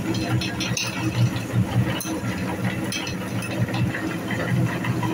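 Motor-driven meat grinder running with a steady hum while its auger crunches the food through the cutting plate, with irregular clicks and rattles.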